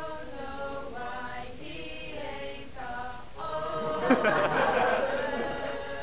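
Small group of mixed male and female voices singing unaccompanied in a gospel-spiritual style, holding long notes. The singing swells louder about four seconds in.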